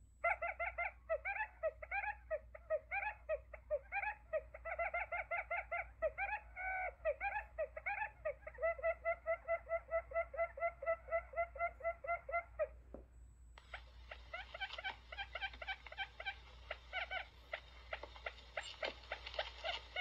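Recorded quail calls used as a hunting decoy: long runs of short, fast chirping notes, several a second. After a brief break at about 13 seconds, a hissier recording of the same kind of calls follows, with sharp ticks among the notes.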